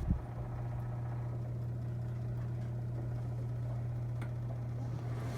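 Honeywell CHS122AE evaporative air cooler running with a steady low hum, with a faint tick about four seconds in.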